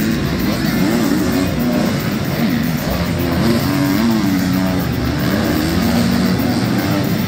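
Supercross dirt bike engines revving on the track, their pitch rising and falling as the riders work the throttle.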